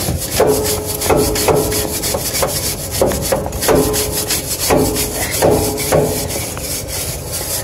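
A stiff brush scrubbing dust out of a gas unit heater in repeated scratchy strokes, about ten of them, over a steady hum.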